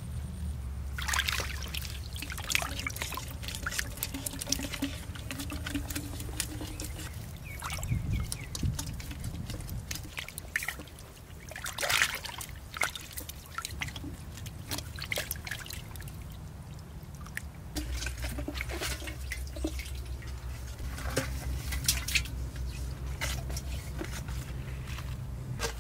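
Muddy water trickling and splashing out of the end of a PVC pipe into a buried pot, with irregular drips and small splashes. This is water draining through a pipe-and-pot fish trap. A steady low hum sits underneath.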